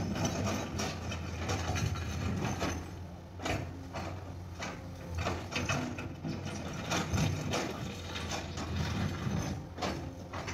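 Cat 336D excavator's diesel engine running steadily while it works, with frequent irregular knocks and rattles throughout.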